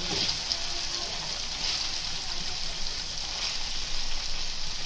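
Hot oil sizzling steadily in a kadai as raw chicken pieces go into it over fried onions, garlic and ginger.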